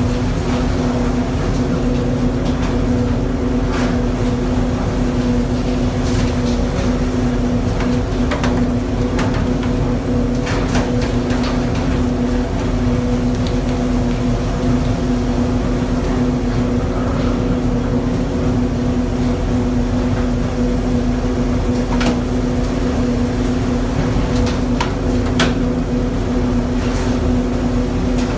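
Steady drone of the fishing boat's engine and deck machinery: a constant hum with a firm steady tone. A few sharp clicks or knocks now and then, two of them clearer in the second half.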